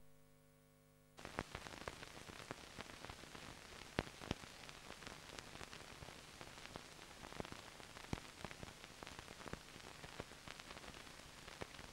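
Faint hiss of an old film soundtrack, thick with irregular clicks and crackles, starting about a second in.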